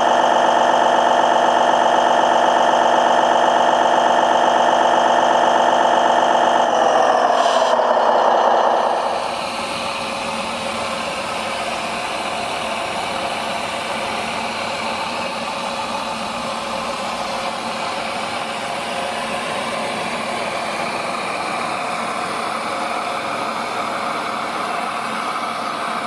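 An RC fire truck's machinery hums steadily, then winds down in pitch about seven seconds in and stops, leaving a steady hiss.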